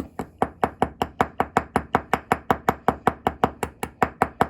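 A small riveting hammer tapping lightly and rapidly, about six taps a second, on the back of a metal decorative rivet. Each tap is a short, sharp metal click. The rivet is being spread just enough to hold in place, not fully set.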